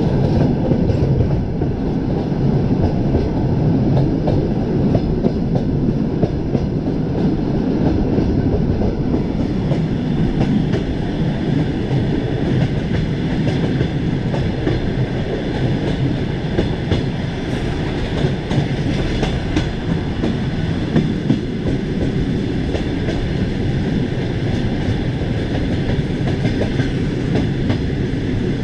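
Train running along the track: a steady rumble of wheels on rails, with the knock of wheels over the rail joints.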